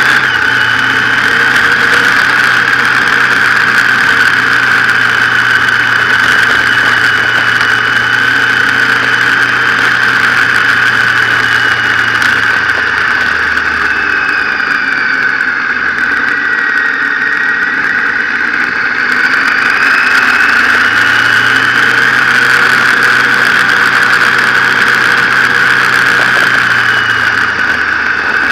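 Motorcycle engine running on the move, recorded from the bike, under a steady high-pitched whine and wind noise. The engine note drops away about halfway through and rises again a few seconds later as the bike eases off and picks up speed.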